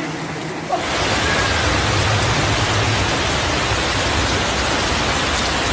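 Floodwater rushing through a street in heavy rain: a loud, steady, dense rush that steps up louder just under a second in.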